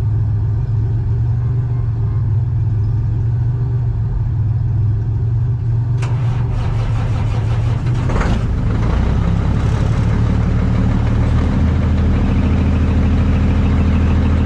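Semi truck's diesel engine running steadily. The sound changes abruptly about six seconds in, and a brief noisy burst comes around eight seconds.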